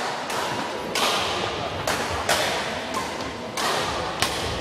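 Badminton rally: rackets strike a shuttlecock back and forth in sharp hits about once a second, each ringing briefly in the hall.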